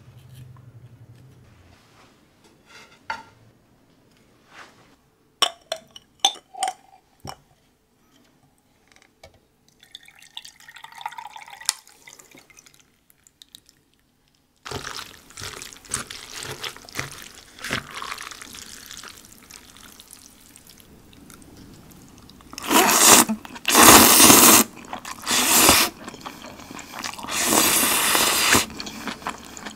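Light clicks of wooden chopsticks against a ceramic plate. About halfway through, a canned pear drink is poured into a glass, a steady liquid pour. Several loud bursts of noise come near the end.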